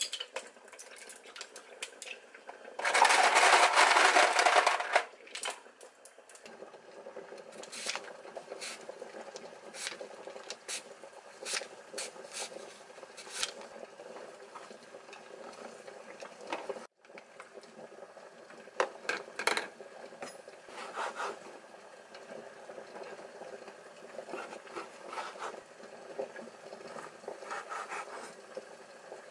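Kitchen food-prep sounds: a loud rush of running tap water for about two seconds a few seconds in, then scattered knife strokes on a wooden cutting board and light clinks of bowls, over a faint steady hum.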